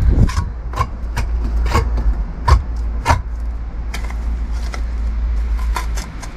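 A steel trowel taps and scrapes as mortar is spread onto a lightweight Thermalite block, making a string of sharp clicks with a short ring. Under it is a steady low rumble that stops about six seconds in.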